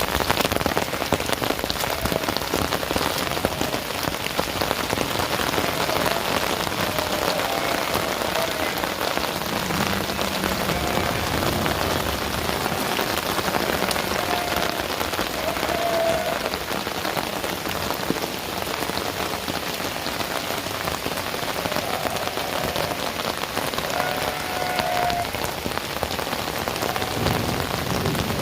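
Heavy rain falling steadily, drops pattering densely on surfaces.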